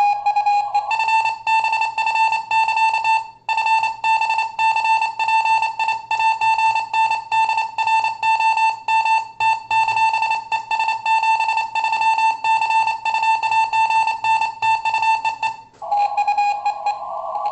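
Morse code (CW) on a ham radio: a beeping tone keyed rapidly in dots and dashes, with a short break about three and a half seconds in. Near the start and again near the end, the tone drops slightly in pitch and comes with a band of receiver hiss.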